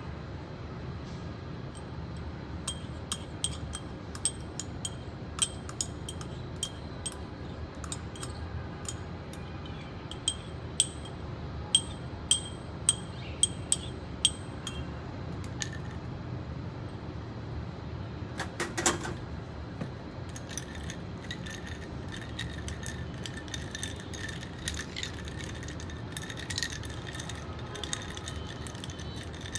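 Metal spoon stirring in a drinking glass, clinking against its sides again and again, each clink ringing at the same high pitches.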